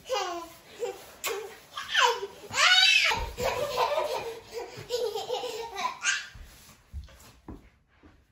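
A baby laughing and squealing in excited high-pitched bursts, loudest about two to three seconds in and dying away near the end.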